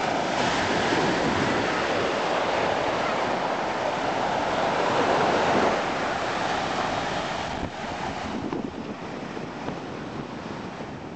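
Surf washing up a sandy beach with wind on the microphone, a steady rush that swells to its loudest about five to six seconds in and eases off after about eight seconds.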